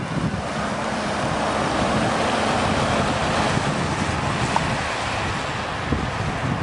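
Steady rush of wind and road noise from a moving vehicle, with a low rumble underneath.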